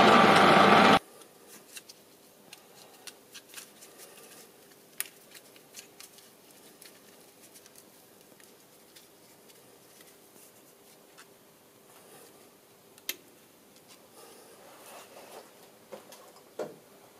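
A metal lathe running steadily with a whine, cut off suddenly about a second in. Then faint clicks, ticks and rustles of handling as thin thread-measuring wires held in foam blocks are fitted over the freshly cut thread for a three-wire measurement, with a few sharper ticks.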